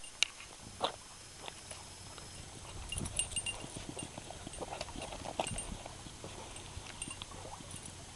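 A puppy's claws clicking and tapping irregularly on wooden dock boards as she walks about, busiest in the middle, with a few faint high pings.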